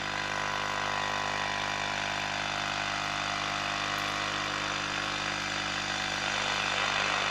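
Philips BF401A valve radio's loudspeaker giving a steady low mains hum, a stack of buzzing tones, under a hiss of static with no station tuned in. The hum is ripple on the audio valve's supply that an added filter has not cured.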